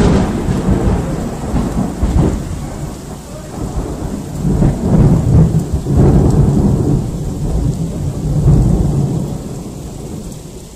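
Loud rolling thunder over rain: a long low rumble that swells several times and dies away near the end.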